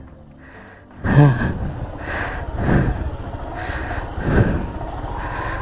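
Motorcycle engine running at low speed with repeated throttle blips, setting in suddenly about a second in after a quiet moment.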